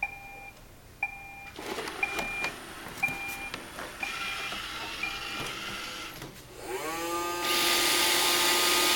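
iRobot Roomba robot vacuum starting up: short electronic beeps about once a second, then its motors spin up with a rising whine about seven seconds in and settle into a steady vacuum hum, while the robot stays put before it starts moving.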